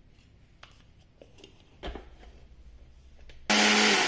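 Electric mixer grinder (mixie) with a stainless-steel jar switched on to grind torn wholemeal bread into breadcrumbs: a few light knocks and a thud as the jar is handled, then about three and a half seconds in the motor starts with a sudden loud whir and a steady hum.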